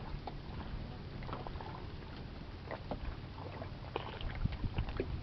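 Water lapping against a small wooden boat, with a faint steady low hum and scattered light knocks and clicks.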